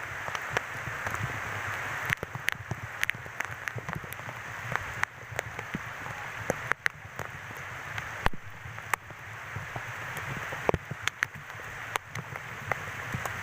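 Heavy rain falling: a steady hiss with many sharp taps of drops hitting close by.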